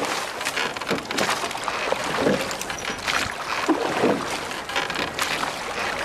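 Wooden oars working in a rowing skiff under way, with sharp knocks from the oars in their thole pins on each stroke over the splash and rush of water.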